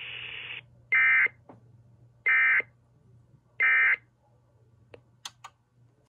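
Sage EAS ENDEC sending the Emergency Alert System end-of-message code: three short bursts of shrill digital data tones about a second apart, after a hiss cuts off. A few faint clicks follow near the end.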